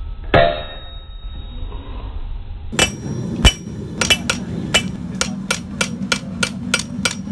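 Forging hammer striking a red-hot 1084 high-carbon steel knife blade on an anvil, working in the edge: one ringing blow near the start, then after a pause a run of quick blows, about three to four a second. A steady low hum runs under the blows in the second half.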